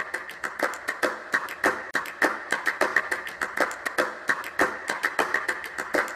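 A quick, uneven series of sharp taps or clicks, about four a second, over a faint steady hiss.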